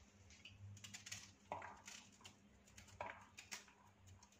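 Faint clicks and small snaps of a knife cutting cauliflower florets from the stem against a cutting board, with two slightly louder cuts about one and a half and three seconds in.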